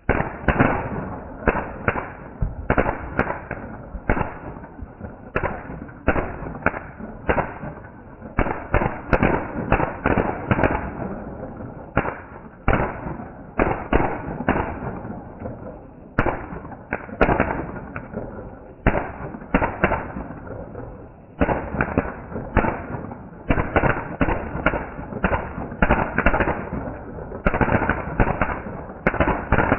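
Ground fireworks going off: a long run of sharp bangs and crackles, about two a second, each with a short fading tail. The sound starts suddenly.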